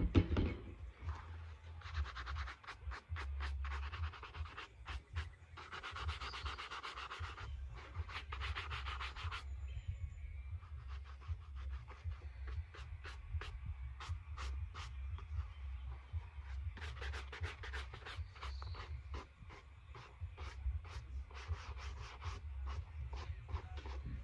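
Shoe being polished with a stiff-bristled shoe brush: quick rasping back-and-forth strokes in runs of a few seconds, with sparser single strokes in the pauses between.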